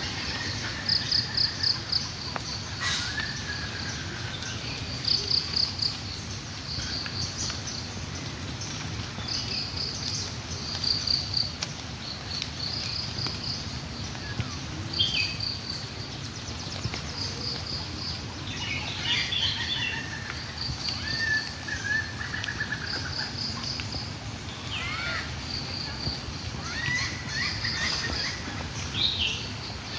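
Several birds calling in open countryside: a short, rapid run of high notes repeats every second or two, with other scattered chirps and whistled glides in between, over a steady outdoor background hiss.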